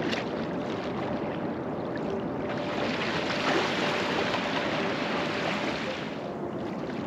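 Sea kayak gliding in through shallow water onto a sandy shore, with small waves washing on the sand. About two and a half seconds in, a louder rushing hiss swells for a few seconds as the hull runs up onto the beach, then eases back to the lapping water.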